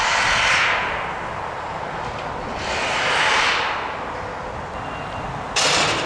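Three loud bursts of hissing over a steady low rumble. The first two swell and fade over about a second and a half each. The last, near the end, starts and stops abruptly.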